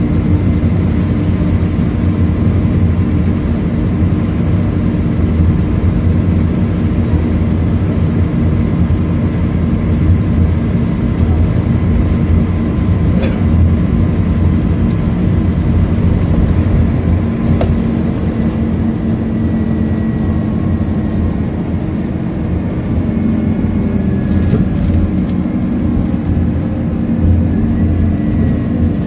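Scania K230UB single-deck bus's five-cylinder diesel engine and road noise heard from inside the saloon while the bus travels at speed: a steady low drone, with a few faint clicks and rattles in the second half.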